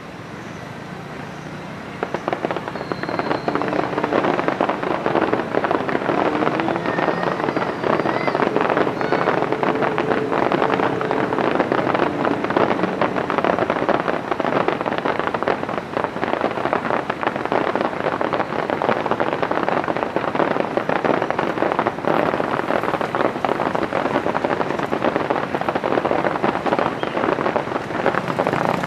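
Fireworks display firing a rapid, continuous barrage of bangs and crackling, starting about two seconds in.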